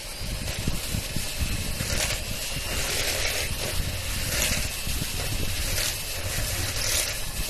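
Philips electric hand mixer running, its twin beaters whirring through a freshly added egg and creamed butter in a stainless steel bowl, the noise swelling every second or so as the beaters move around the bowl.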